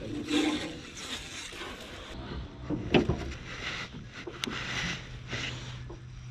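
Rustling and knocking as gear and clothing are handled in a small fishing boat, with one louder knock about three seconds in. A low steady hum comes in a little after two seconds.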